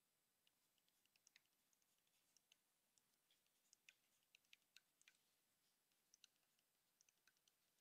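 Faint, irregular clicks and taps of a stylus writing on a tablet screen, several a second, over near silence.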